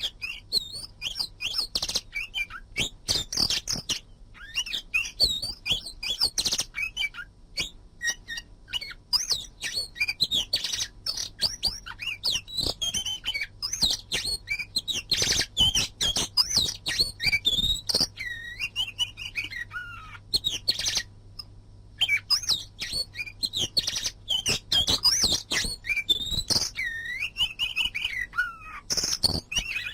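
Oriental magpie-robin singing a long, varied song of quick chirps and whistled notes, many sliding downward, with brief pauses.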